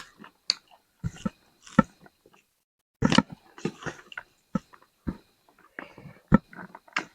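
A person biting and chewing spicy chicken, a string of irregular sharp bites and chewing noises.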